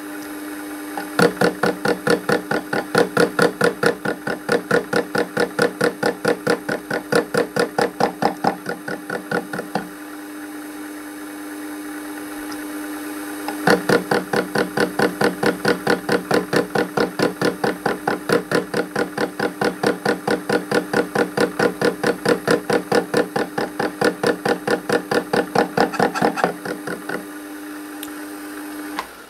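Lathe running at about 250 rpm with a steady hum, its cutting tool taking an interrupted cut on the uneven rim of a flywheel blank: a rapid knock about four times a second, once per turn as the tool strikes the high spots. The knocking stops for a few seconds near the middle, resumes, and stops again shortly before the end while the lathe keeps running.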